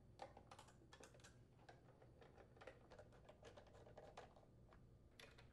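Very faint, irregular clicks and taps of a nutdriver turning the mounting screws on a small engine's plastic blower housing.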